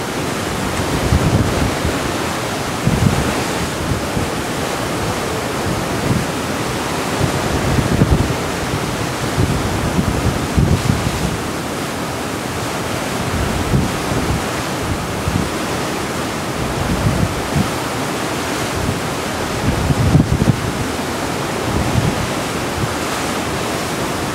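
Sea water rushing and churning along the hull of a moving cruise ship as a steady wash, with wind buffeting the microphone in irregular low gusts.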